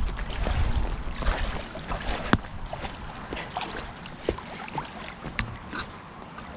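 Shallow lake water sloshing and lapping with small scattered splashes around a man wading in it. Wind rumbles on the microphone in the first second or so, and there is a single sharp click a little after two seconds.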